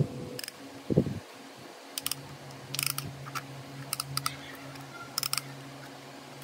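Short bursts of rapid clicking, roughly once a second, over a steady low hum, with a single knock about a second in.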